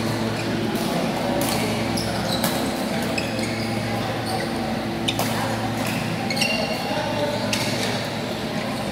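Badminton rally: sharp racket-on-shuttlecock hits about once a second, with short shoe squeaks on the court floor. A steady low hum and the echo of a large hall run underneath.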